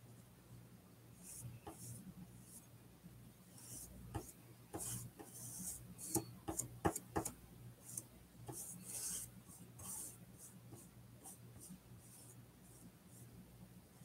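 Faint, scratchy strokes of a paintbrush laying acrylic paint onto a primed painting panel and picking up paint from the palette. The strokes come in short runs, busiest in the middle, with a few light ticks as the brush touches down.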